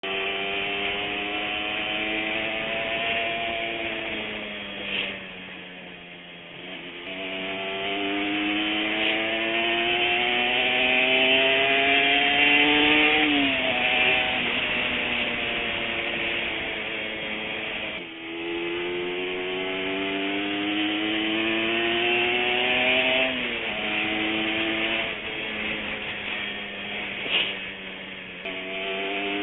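Two-stroke Honda NSR150 motorcycle engine pulling hard, its pitch rising under throttle and dropping sharply at each gear change. It eases off briefly twice before winding up again.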